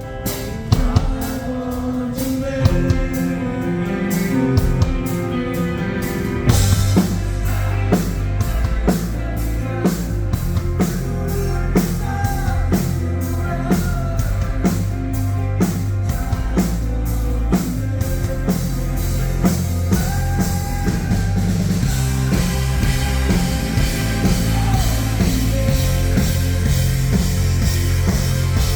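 Live rock band playing, the drum kit prominent with a steady beat. About six and a half seconds in, the full band comes in louder and heavier, with a thick bass.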